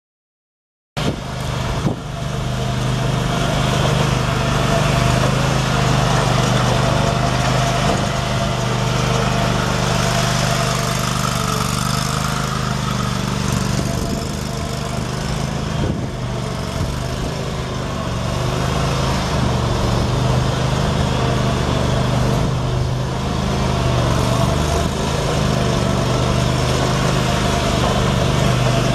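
Kohler Pro 725cc two-cylinder gas engine of a Toro Z Master 5000 series zero-turn lawn mower running steadily. The sound comes in abruptly about a second in.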